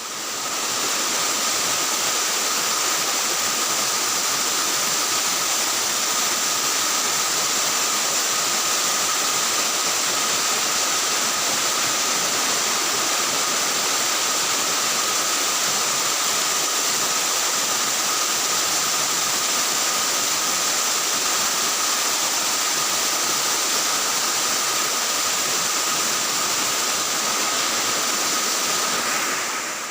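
Steady, loud rushing hiss with two faint, steady high tones running through it. It cuts in abruptly and stops just as abruptly.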